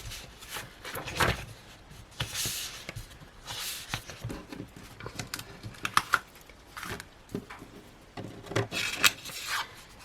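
Sticker sheets and paper from a planner kit being handled and shuffled: irregular rustling swishes and light taps and clicks.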